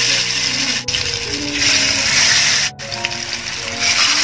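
Masala-coated tilapia pieces sizzling as they go into hot oil in a frying pan, with background music playing over it. The sizzle breaks off briefly twice.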